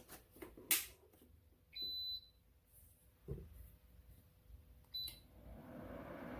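Ceramic fan heater being switched on: a few handling clicks, a half-second electronic beep about two seconds in and a short one about five seconds in, then the heater's fan starts up and its steady airflow whoosh grows near the end.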